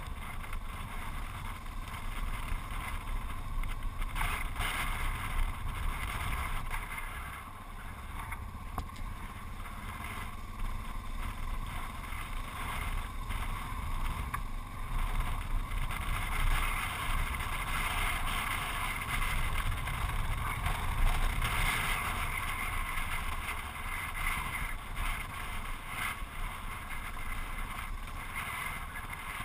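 Yamaha XT660Z Ténéré's single-cylinder engine running steadily while riding, with wind buffeting the microphone.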